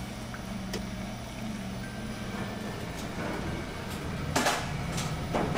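A steady low hum in a commercial kitchen, then two short splashes about a second apart as a large slab of beef is dropped into a steel stockpot of broth.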